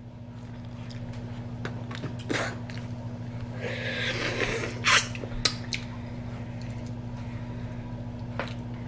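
Eating and handling a boiled duck egg: scattered small clicks of eggshell crackling and fingers on the egg, a soft rush of noise as it is bitten about three and a half seconds in, and a sharp click just after. A steady low hum runs underneath.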